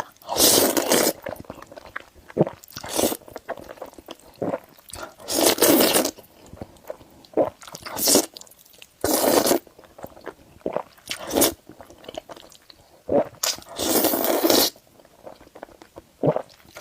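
A person eating spicy noodles close to the microphone: about eight slurps of half a second to a second and a half each, with wet chewing and small clicks between them.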